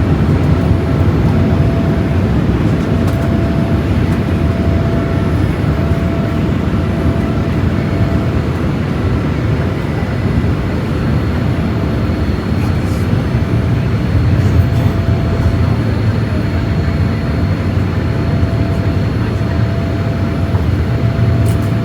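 Steady cabin noise inside a Boeing 787-8 in the climb after takeoff: a low rush of engine and airflow noise with a few faint steady tones above it.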